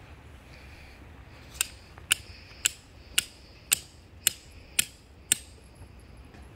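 Hammer driving a metal stake, taped to the foot of a wooden dowel pole, into the ground. Eight sharp, ringing strikes about two a second, starting about a second and a half in.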